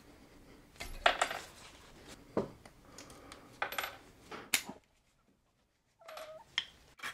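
Bolt cutters snipping tines off a metal fork: several sharp metallic clicks and clinks, the cut pieces and fork clinking against the bench. About two-thirds in, a second of dead silence breaks the series.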